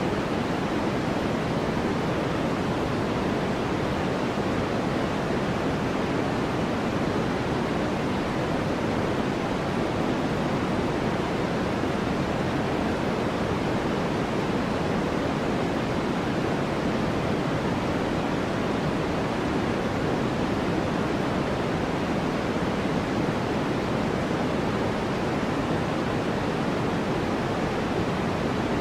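Steady white noise track: an even, unchanging rushing hiss, fuller in the low and middle range than in the highs.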